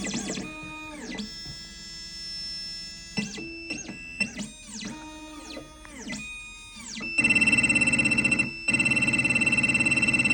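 Xhorse Dolphin II key-cutting machine's stepper motors whining in a string of quick rising-and-falling pitch sweeps as it moves to decode the key. From about seven seconds in a louder steady whine with a fast pulse takes over, cutting out briefly about a second later.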